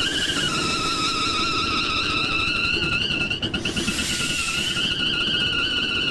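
A high whistle holds one slightly wavering pitch throughout, over a low, dense mechanical rumble from the running Reid Type A engine.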